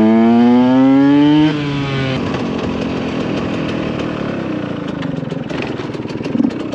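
Two-stroke motorcycle engine accelerating hard, its pitch climbing steadily, then the throttle is shut about a second and a half in and the engine note drops away. What is left is a steady rush of wind and road noise.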